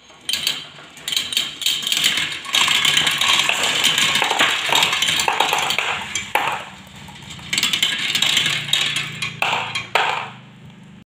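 Glass marbles dropped into a plastic marble run's funnel, rattling and clicking as they roll down the plastic spiral track and chutes, with a short lull a little past the middle.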